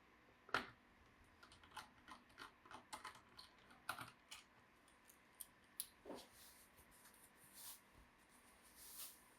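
Irregular light clicks and small scrapes of hand tools working on a laptop's plastic and metal case during disassembly. One sharper click comes about half a second in.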